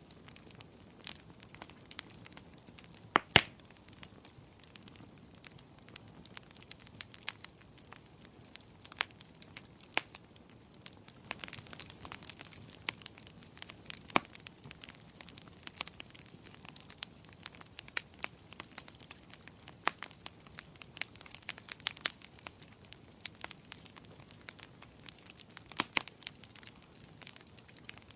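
Wood fire burning, crackling with irregular sharp pops over a low hiss; the loudest pop comes about three seconds in.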